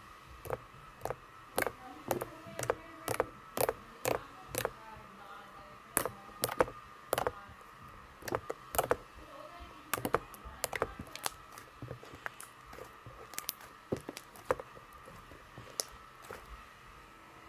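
Slime being squished and poked by hand, giving a run of sharp irregular pops and clicks, roughly one to two a second, over a faint steady hum.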